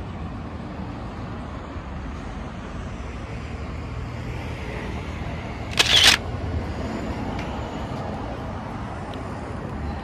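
Outdoor street ambience with a steady low hum of passing traffic. A short, sharp noisy burst, the loudest sound here, comes about six seconds in.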